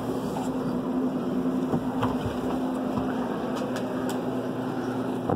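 Steady low mechanical hum with a haze of background noise and a few faint light clicks.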